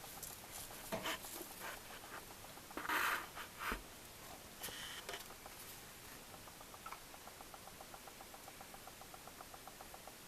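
Pet budgerigars preening each other: soft rustling and a short chirp, then a fast, even run of faint clicking, about six or seven clicks a second, for the last few seconds.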